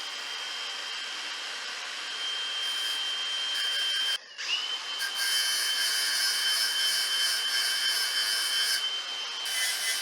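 Power grinder running with a steady high whine, grinding down the mushroomed thread on the end of a dirt bike's rear shock shaft. It stops briefly about four seconds in, spins back up, and grinds harder for a few seconds with more hiss.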